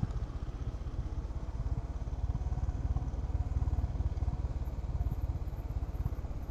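Honda H'ness CB350's single-cylinder engine running at low revs while being ridden, giving a rapid, even, low-pitched exhaust pulse.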